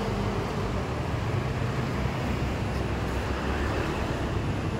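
Steady hum of street traffic with general outdoor market noise, with no single event standing out.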